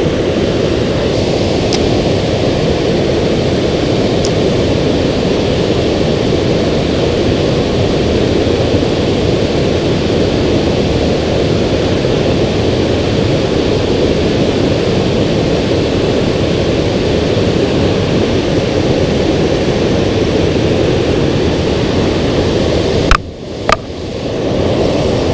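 Steady, loud rush of water pouring over a river spillway. Near the end it briefly drops away with a couple of sharp clicks.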